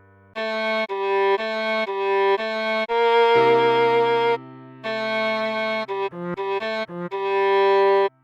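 Viola playing a simple melody note by note, each note separated by a short break, with a lower note held beneath the tune through the middle and the last note ending abruptly just after eight seconds.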